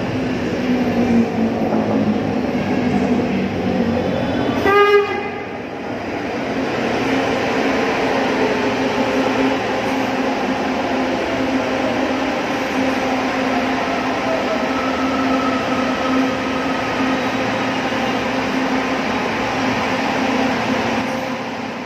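Hyundai Rotem–Toshiba electric light-rail train running into an elevated station, with a steady hum and the rumble of its wheels on the track. It gives one short horn blast about five seconds in. A whine then slowly falls in pitch as the train slows alongside the platform.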